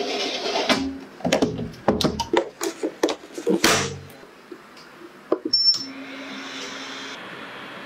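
Metal baking tray of foil-covered coconut cups sliding onto the rack of a Fotile steam oven, with several sharp metallic knocks and scrapes. About five seconds in, a click of the control and a short electronic beep, then the steam oven starts its program with a steady even hum.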